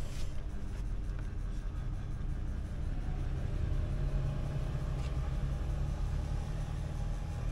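Steady low rumble of a motor vehicle's engine running, its hum growing a little stronger about three seconds in.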